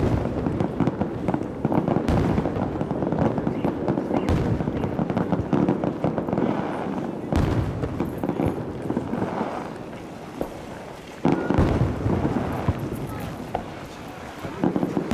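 Fireworks display: shells bursting overhead in quick succession with continuous crackling. The sharpest bangs come near the start and about two, four, seven and eleven seconds in.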